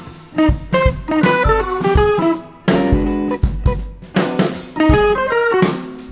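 Background music: plucked guitar notes over a drum kit beat.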